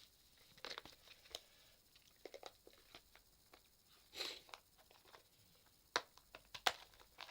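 Faint clicks, taps and brief scratchy rustles of a plastic toy package being handled and worked open by hand, with a longer rustle about halfway and two sharp clicks near the end.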